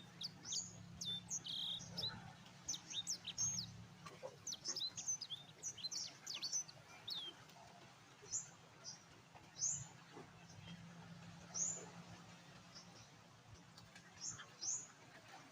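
Small birds chirping: quick, high, downward-sweeping chirps, many overlapping in the first half, then single chirps every second or two.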